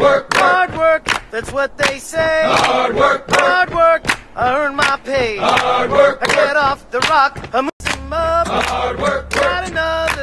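Background music with several voices singing together over sharp regular percussion. The sound drops out for a moment near the end, and a steady low hum comes in beneath the music after that.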